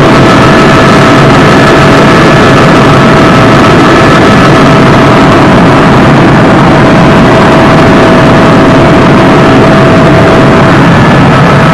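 Helicopter in flight heard from inside the cabin: loud, steady engine and rotor noise with a thin, steady high whine on top.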